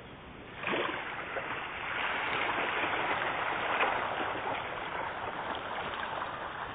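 Water splashing and churning as a dense crowd of common carp thrashes at the pond surface, starting abruptly about a second in and going on steadily.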